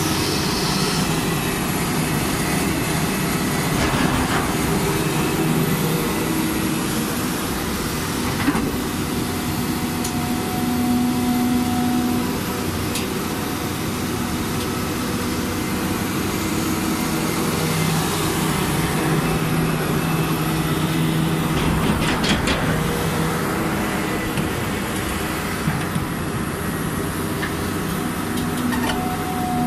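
Hitachi Zaxis 350 LCN excavator's six-cylinder diesel engine working under hydraulic load while digging, its note stepping up and down as the boom and bucket move. A few sharp knocks stand out, one about eight seconds in and a short cluster around twenty-two seconds.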